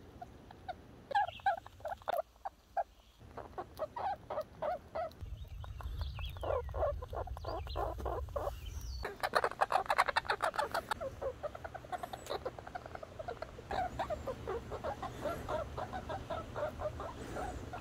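Red squirrel making runs of short squeaky chirps, several a second, in a few separate bursts. A denser stretch about halfway through, mixed with sharp clicks, is the loudest part.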